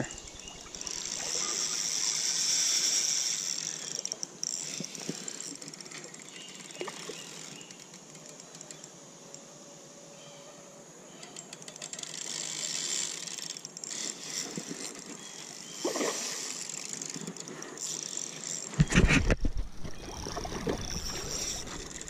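Spinning reel being cranked in spells, a light whir with gear ticks, over a hiss of moving water. A few low thumps of handling on the microphone come near the end.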